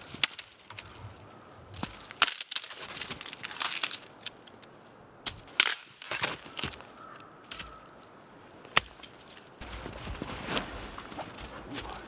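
Snow crunching under snowshoes as someone moves about, with several sharp cracks of dry sticks snapping.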